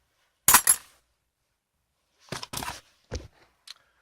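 Clatter of small hard objects being picked up and set down. Two loud knocks come about half a second in, then a run of lighter knocks and rattles in the second half.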